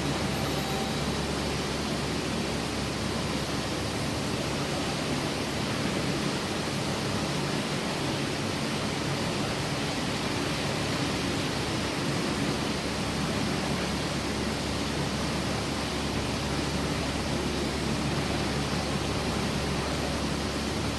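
Steady, even machinery noise with a faint low hum, unchanging throughout.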